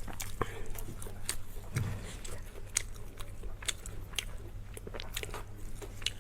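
Close-up chewing and biting of food, irregular wet mouth clicks and smacks.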